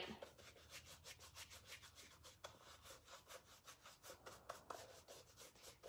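Faint, quick rubbing strokes, about four or five a second, of a paintbrush scrubbing paint into a canvas shoe.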